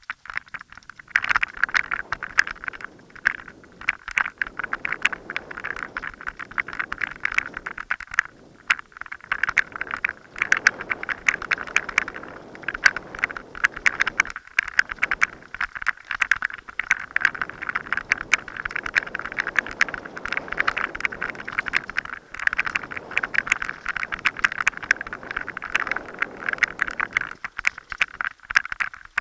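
Mountain bike riding fast down a dirt forest trail: continuous clattering and rattling of the bike and camera mount over bumps and roots, with the tyres rolling over dirt. It starts about a second in.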